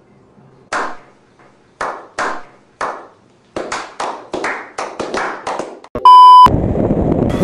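Several people doing a slow clap: single hand claps about a second apart that quicken to several a second. About six seconds in, a very loud steady beep of about half a second cuts in, then a loud harsh hiss of TV static.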